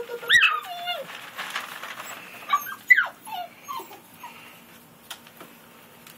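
Seven-week-old rough collie puppies yipping and whining: short high calls that fall in pitch, one loud call about half a second in and a quick run of several more around three seconds in.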